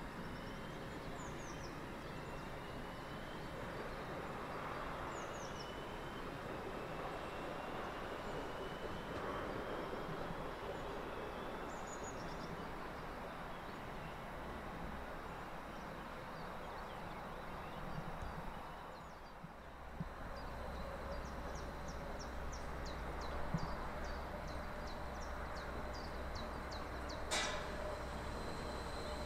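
Railway station ambience with a train moving away in the distance, its faint whine rising in pitch over the first several seconds, and birds chirping now and then. After a short dip about two-thirds of the way in, a low steady hum sets in as another train approaches, with a row of quick high chirps and one sharp click near the end.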